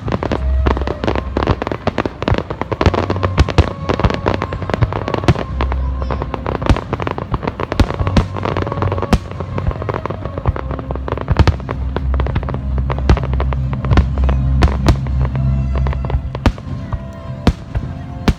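Aerial fireworks display with a continuous run of sharp bangs and crackles, several a second throughout, with music playing underneath.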